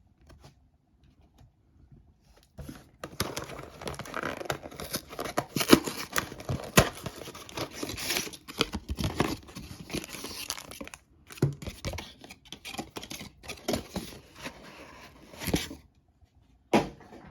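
A trading-card pack's wrapper being torn open and crinkled by hand. It starts a couple of seconds in with several seconds of continuous ripping and crackling, then thins to scattered crinkles.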